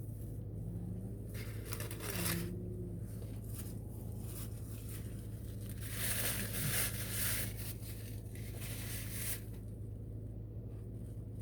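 Crunchy, crinkling eating noises from a crispy fried chicken sandwich being bitten and handled in its wrapper, in two stretches, the longer one about six seconds in. A steady low hum runs underneath.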